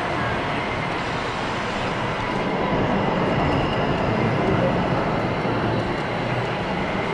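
Steady mechanical rumble and whir of radio-controlled construction models running, swelling slightly in the middle.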